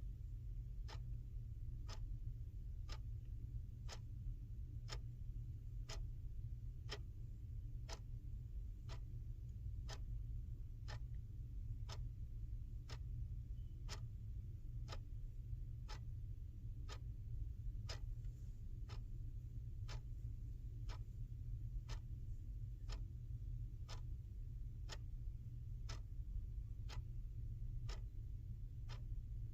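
Clock ticking steadily, one sharp tick about every second, over a steady low hum.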